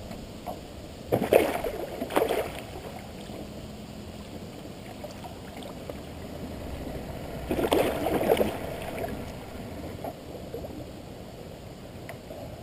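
A hooked musky splashing at the surface beside a canoe: short bursts of splashing about a second in, again at two seconds, and near eight seconds, over a steady wash of river water and wind.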